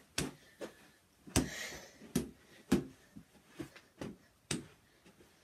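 A run of light thumps and taps at uneven spacing, roughly two a second, from a person moving about a small room.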